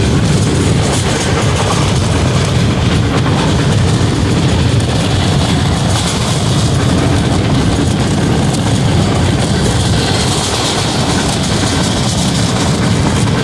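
Rail car running at speed, heard from an open window: a loud, steady rumble of wheels on the track with air rushing past.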